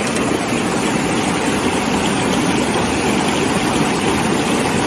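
Steady rush of a shallow stream running over rocks.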